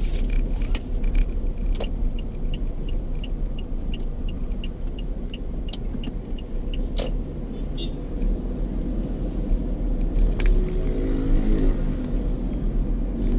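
Motor vehicle engine running with a steady low rumble, and the engine tone rising near the end. A run of quick, evenly spaced ticks sounds for a few seconds early in the middle, with a few sharp clicks scattered through.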